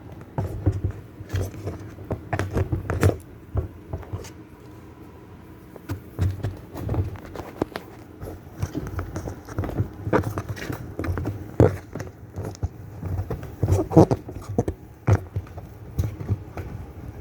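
Irregular taps, knocks and clicks of hands handling washer parts while a new seal is worked into place, with a few louder knocks about ten, fourteen and fifteen seconds in.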